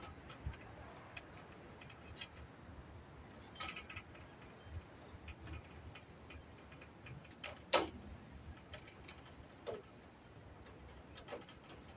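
Faint clicks and knocks from a metal shed's sheet-metal panels and frame being handled, with small birds chirping over and over in the background. The loudest is a sharp knock with a falling tone about eight seconds in.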